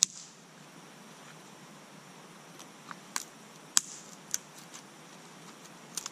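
Scattered sharp clicks and snaps from small material being worked in gloved hands, the loudest right at the start and about four seconds in.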